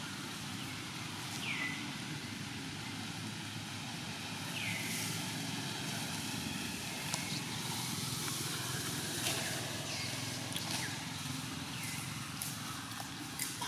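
Outdoor ambience: a steady low rumble of distant engine traffic. Over it, about five times, comes a bird's short call that slides down in pitch and settles briefly, with a few faint clicks between.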